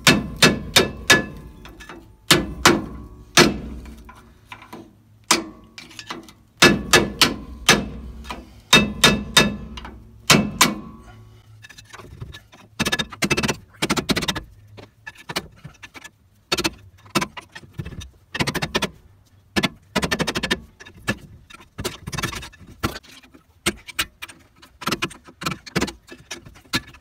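Hammer striking the rust-seized rear brake pads in a 2007 Ford F-150's caliper bracket to knock them loose: a long series of sharp metal-on-metal blows with a ringing edge. Heavier knocks come in the first half, then quicker, lighter taps.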